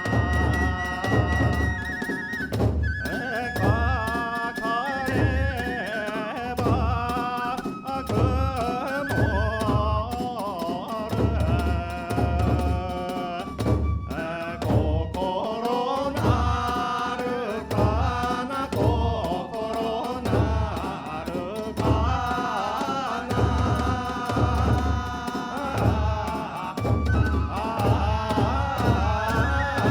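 Kagura hayashi ensemble playing: a large drum beating steadily, a little more than once a second, under a high flute line and chanted voices whose pitch bends and slides.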